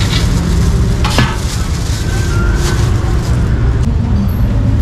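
Busy street noise: a steady low engine and traffic rumble with a hiss over it, broken by a few short, sharp knocks.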